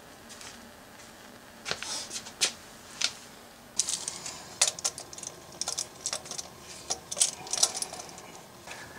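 Irregular sharp clicks and light metallic clinks from gloved hands threading an oil filter onto the filter mount of a Honda S2000 engine. The clicks start about two seconds in and come thickest in the second half.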